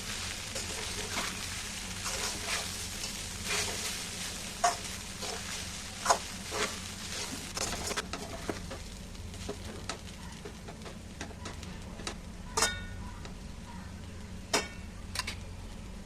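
A spoon stirring and scraping food around a hot pan in repeated short strokes, with frying sizzle. Twice near the end the spoon knocks the pan with a brief ringing clang.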